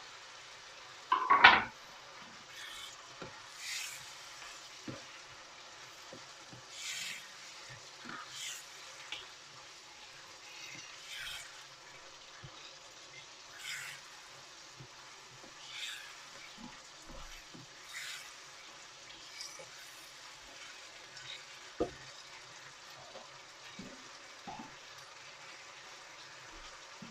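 Onions, peppers and spice paste sizzling gently in a frying pan as tomatoes are stirred in, the spoon scraping the pan every second or two. A single louder clatter comes about a second in.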